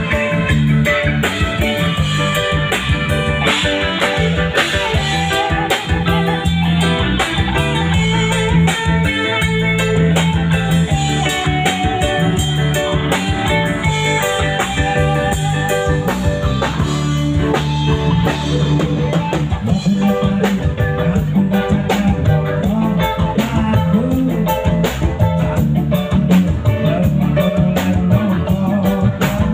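Live band playing an instrumental piece, guitar over a bass line and drum kit.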